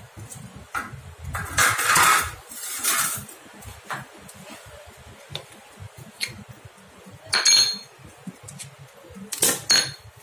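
Metal scraping and clinking from the aluminium pressure plate of a tyre patch press being pried and lifted off a car tyre's sidewall with a hand tool. There is a rough scraping about one and a half to three seconds in, then two ringing metallic clinks near the end, about two seconds apart.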